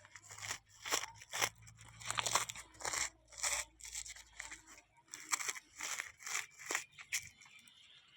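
Dry crunching and rustling as sunflower seeds are handled: a string of irregular crackly scrapes, several a second.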